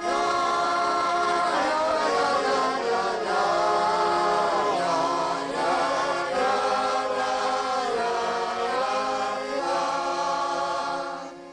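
Several voices singing together in slow, long-held notes, a drunken pub sing-along. It starts suddenly and fades out near the end.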